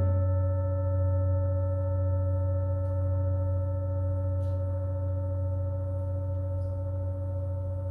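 Meditation bowl (singing bowl) ringing on: a steady chord of pure tones, the lowest the strongest, slowly fading.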